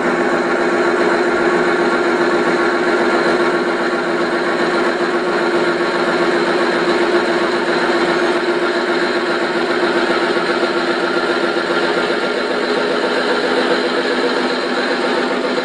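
Steady idling diesel-engine sound of a stationary H0-scale Köf-type small shunting locomotive model, a constant hum with no change in pitch.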